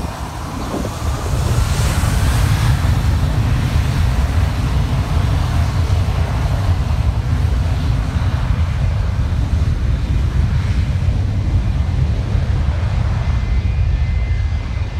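Boeing 737 jet engines spooling up to takeoff thrust: a faint rising whine over the first few seconds, then a steady, loud, deep rumble as the jet rolls away, with heavy wind buffeting on the microphone.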